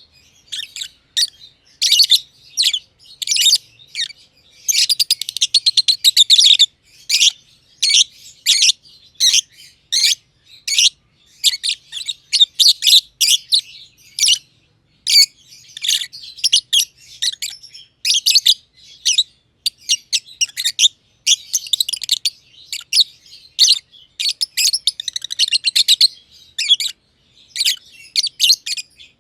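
Two black-masked lovebirds chirping: rapid, shrill, high-pitched chirps in quick bursts, with a few longer runs of continuous chatter.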